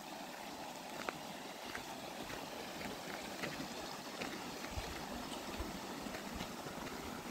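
A small creek babbling over rocks: a steady rush of running water with small splashes and ticks scattered through it. A few soft low thumps come about five seconds in.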